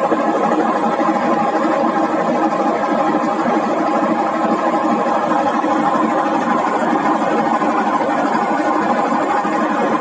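Whirlpool washing machine motor running with a steady, constant hum that does not change in pace.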